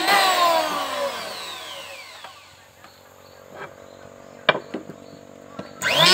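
Electric hand planer switched off and winding down, its whine falling in pitch over about two seconds. A few light knocks follow as the wooden board is handled, then the planer is started again near the end, its whine rising quickly to full speed.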